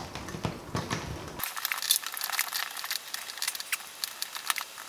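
Scattered light clicks and small knocks of wire and a metal light-fixture canopy being handled as the pendant cord is coiled into the ceiling box and the canopy is pushed up to the mounting plate. The low background hum cuts out abruptly about a second and a half in.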